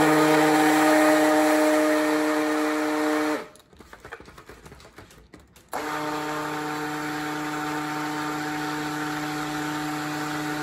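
Immersion stick blender running in a bucket of cold-process soap batter, a steady motor hum. It winds down and stops about three seconds in, then starts again about six seconds in and runs a little quieter. The blending is to thicken the still-thin batter.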